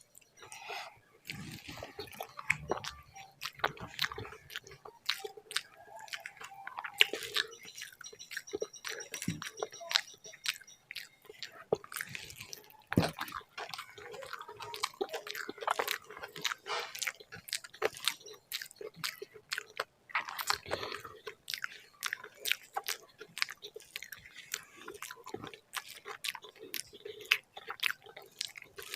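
Close-miked chewing of a mouthful of rice with mashed vegetable bharta: a steady run of wet smacks and small clicks, with a few biting sounds.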